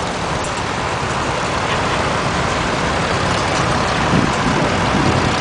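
Engines of a line of old farm tractors driving past, a steady rumble mixed with road noise, slightly louder about four seconds in.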